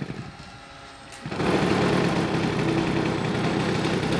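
O.S. 33 cc gasoline engine with MTW canister muffler on a model aerobatic plane, catching about a second in and then running steadily.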